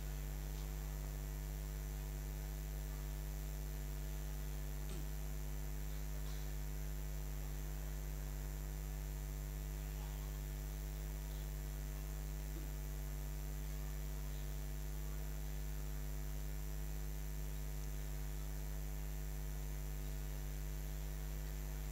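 Steady electrical mains hum with a ladder of overtones, unchanging throughout, with no voice over it.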